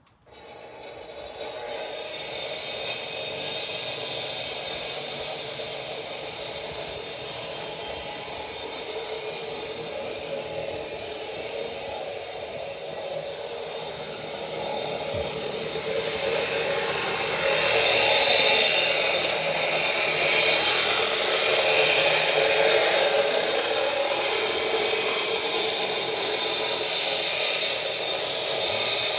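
Steady machine noise that grows louder about fifteen seconds in.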